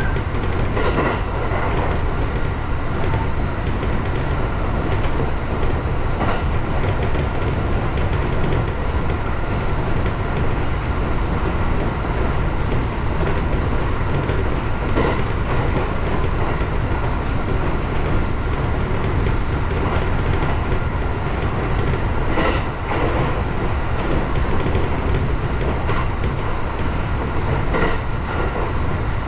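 701 series electric train running at speed, heard from inside the driver's cab: a steady wheel-on-rail rumble with a few sharp clicks as the wheels pass over track joints.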